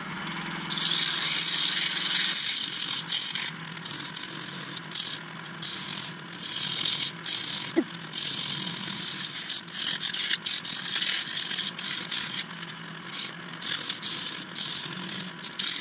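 80-grit abrasive paper held against a wood-and-resin vase spinning on a Nova DVR Saturn lathe: a steady sanding hiss, cut off briefly many times as the paper lifts and is pressed on again, over the low hum of the running lathe. This is the coarse sanding that knocks back a coat of shellac.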